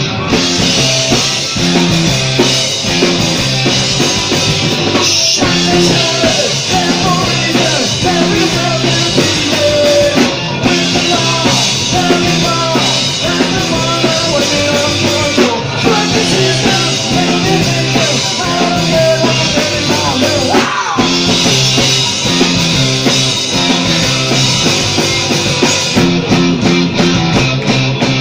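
Punk band playing live: electric guitars and a drum kit with a man singing.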